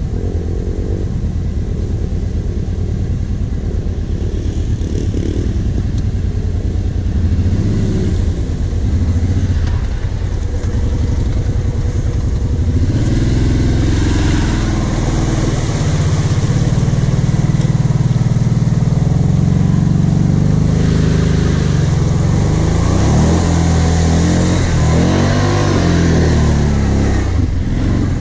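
Quad bike (ATV) engine running under load as it is driven through deep ruts. It gets louder about halfway through, then revs up and down repeatedly near the end.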